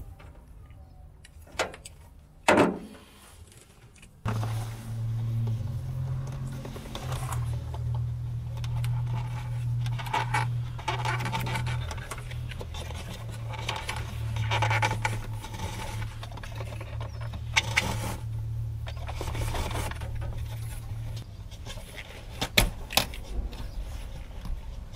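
Hands pulling a wire through plastic cable loom and working among the wires in an electrical box: rustling, scraping and a few sharp clicks, the loudest about two and a half seconds in. From about four seconds in, a steady low hum sits under the handling noise.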